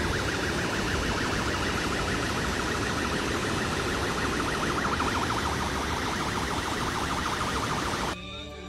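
Floodwater rushing over a dam spillway, with a fast-warbling siren-like alarm tone above it that slowly falls in pitch. Both cut off suddenly about eight seconds in.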